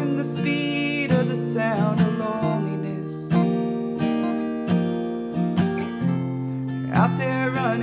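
Live acoustic folk music: acoustic guitar strumming steady chords, with a lead melody line that slides and bends in pitch near the start and again near the end.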